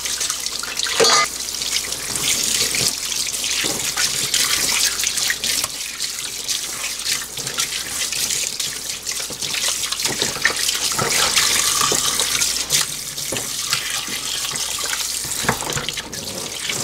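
Kitchen tap running into a stainless steel sink and splashing over hands as they rinse the salt off pieces of salted shark meat in a metal colander. There is a brief knock about a second in.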